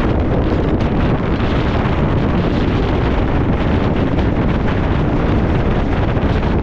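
Wind buffeting the microphone at the open window of a moving passenger train, over the steady running rumble of the train.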